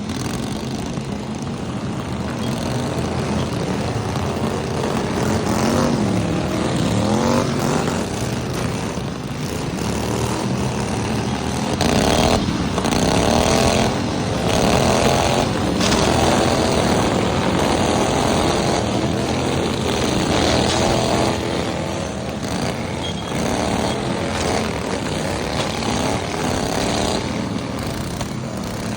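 Several small lawn mower engines running together, their pitch rising and falling as they rev, with a few short knocks partway through.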